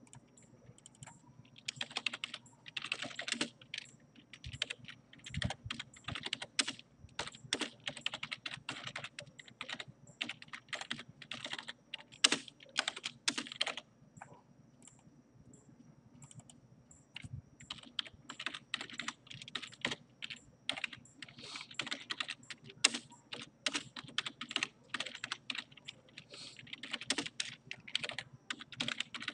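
Typing on a computer keyboard in quick runs of keystrokes, pausing for a few seconds about halfway through.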